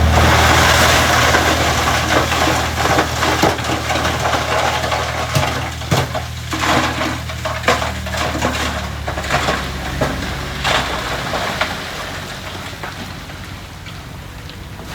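A 10-wheel dump truck tipping a load of stone. The rocks pour out in a dense rush, then keep clattering and knocking as they tumble, over the steady running of the diesel engine. The engine sound drops away about eleven seconds in, and the rattling fades near the end.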